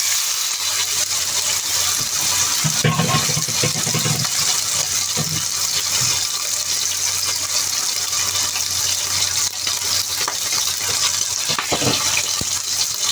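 A cornstarch-coated pork chop sizzling loudly in hot oil over high heat. The sizzle starts suddenly as the meat goes into the pan and stays a steady hiss.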